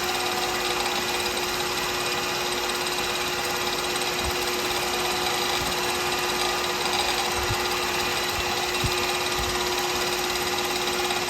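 Wood lathe motor running steadily at speed with a constant hum, spinning the pen blank while its finish dries. A few faint low knocks come through.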